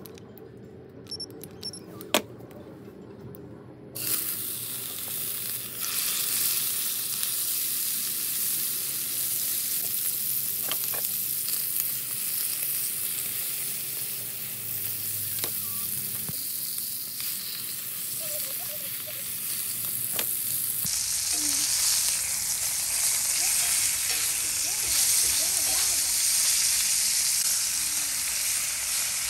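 Beef tenderloin steaks searing in hot oil in a cast iron skillet: a loud, steady sizzle that starts suddenly about four seconds in as the meat meets the oil.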